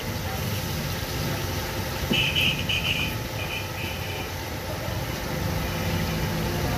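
Chapli kabab patties deep-frying in a large pan of oil: a steady sizzle, over the constant drone of an idling engine. A brief high twittering sound comes about two seconds in.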